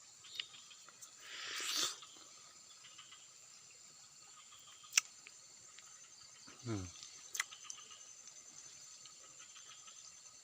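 Steady high-pitched chirring of insects, with a brief rustling swell about a second and a half in, a sharp click near the middle, and a short low sound falling in pitch a little later.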